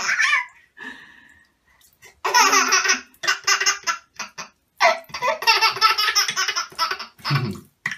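A baby laughing: hearty belly laughs in two long runs, one about two seconds in and a longer one from about five seconds, with short breaks between.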